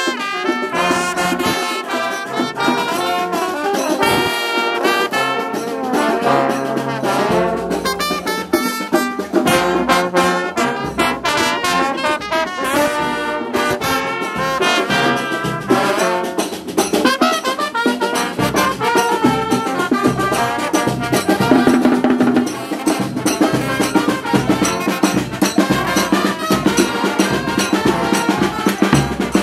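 Brass band music: horns playing a busy melody over a steady percussion beat.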